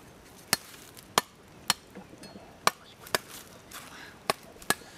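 Meat cleaver striking roasted pork on a bamboo spit, about seven sharp hits at an uneven pace.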